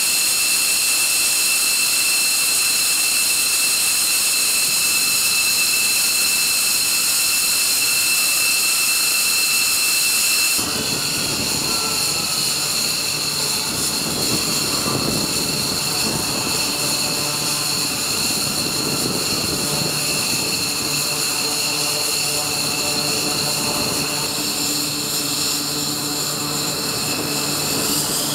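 Jet engines idling, a steady high-pitched whine. About ten seconds in it changes abruptly and a lower steady hum joins the whine.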